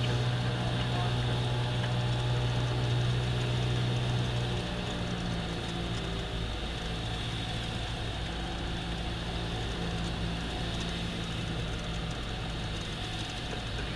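Cessna 172M's four-cylinder Lycoming O-320 engine and propeller droning steadily, heard from inside the cabin. About four and a half seconds in the power is pulled back for landing and the drone becomes lower and quieter, near idle.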